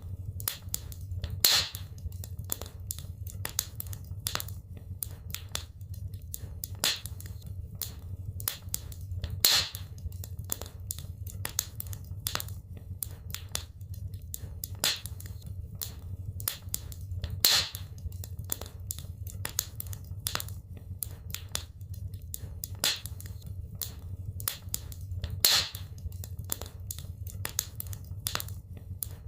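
Wood fire burning in a fireplace: dense crackling and popping over a steady low rumble of the flames, with a louder pop about every eight seconds.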